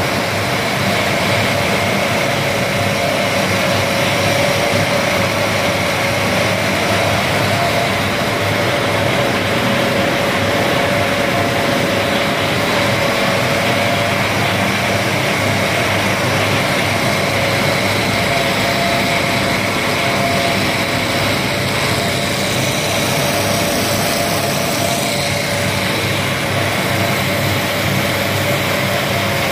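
Maize puff snack production line machinery running: a loud, steady mechanical drone with a constant whine.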